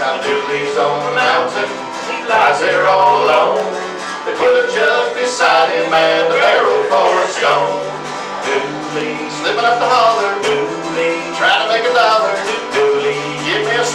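Men singing a country-style song together to acoustic guitar accompaniment.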